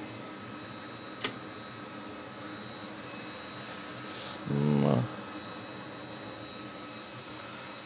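Steady fan-like hiss of a repair bench, with a single sharp click about a second in. Near the middle there is a short high hiss, then a brief low hum from a man's voice that rises in pitch at its end.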